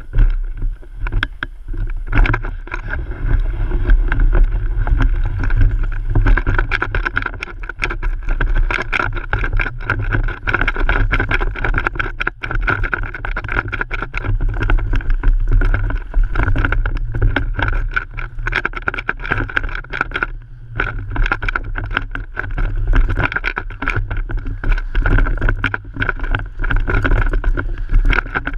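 Mountain bike riding fast down a dirt trail, recorded from a homemade helmet-mounted GoPro rotor: dense rattling and knocks from the bike over low wind rumble on the microphone, with a steady whine from the spinning rotor.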